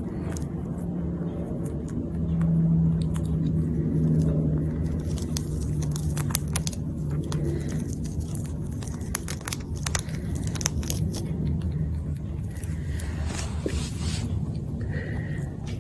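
An animal munching food, with many small crunching and clicking bites, over a steady low hum.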